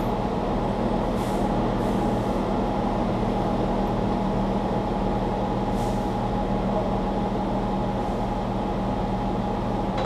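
Steady mechanical hum of a running machine, with a constant low tone and a higher whine. There are a few faint brushing sounds as the seat belt webbing is handled.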